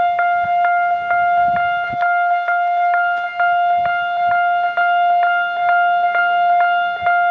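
Japanese railway level-crossing electronic warning bells ringing, a rapid run of dings, roughly three a second, over a sustained ringing tone. Both sounders have an unusual, rather low pitch.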